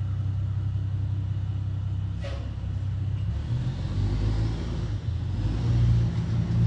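Skid steer engine running loud and steady, its note lifting slightly a couple of times; it starts and stops abruptly.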